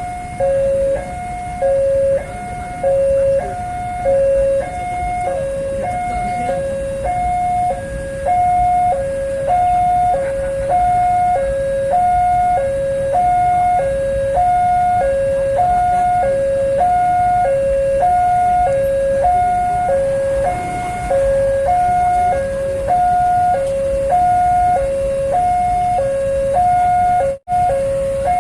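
Railway level-crossing warning alarm sounding its alternating two-tone electronic signal, about one high-low pair per second, the warning that a train is approaching. A steady low rumble runs underneath, and the sound cuts out briefly near the end.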